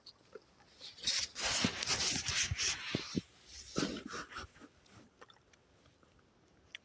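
Rubbing and rustling with several soft knocks, dying away about five seconds in.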